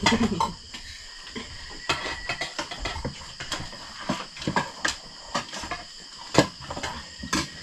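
Irregular clinks and clicks of dishes and eating utensils during a meal, over a steady high chirping of crickets.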